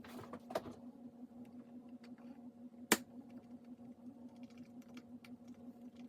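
Apple A1048 keyboard keys clicking a few times, irregularly rather than as steady typing. One sharp, loud click comes about three seconds in.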